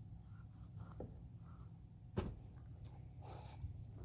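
A few faint knocks of a knife on a cutting board as slits are cut into a whole striped bass, the loudest a little after two seconds in, over a low steady hum.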